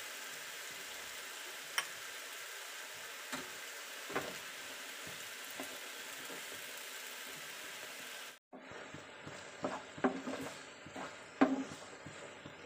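Chopped tomatoes sizzling in oil in a frying pan, with a few knocks of a wooden spatula as they are stirred. After a brief drop-out about eight seconds in, the softened, cooked-down tomatoes hiss more quietly under frequent scraping and knocking of the spatula against the pan.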